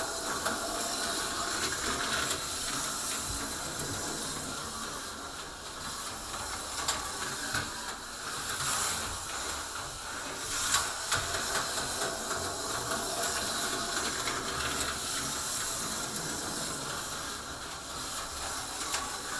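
A new Cougar HO-scale slot car running laps on plastic track: a steady buzzing hiss from its small electric motor and pickup shoes that rises and falls as it circles, with a few sharp clicks. It runs smoothly straight out of the box.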